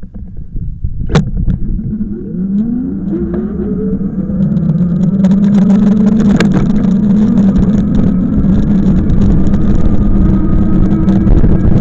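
A vehicle pulling away: its engine note rises over a few seconds, then holds steady while it runs along, with a sharp click about a second in.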